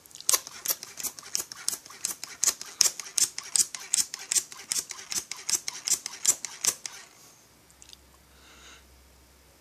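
Hand-held pressure/vacuum pump being worked quickly, clicking about three times a second as it draws a vacuum on a chainsaw fuel tank through the fuel line for a leak test; the pumping stops about seven seconds in.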